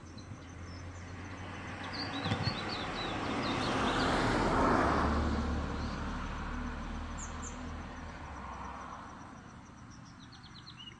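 A vehicle passing by, its road noise swelling to a peak about halfway through and then fading away, while small birds chirp before it and again near the end.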